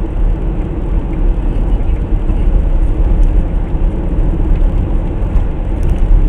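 A car driving at steady speed, heard from inside the cabin: a continuous low rumble of engine and tyre noise on the road surface.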